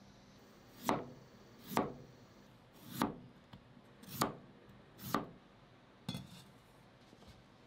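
Chef's knife slicing a peeled potato into rounds on a cutting board: five slow strokes, about one a second, each ending in a knock on the board. About six seconds in, a stainless-steel bowl is set down on the counter with a short metallic clink.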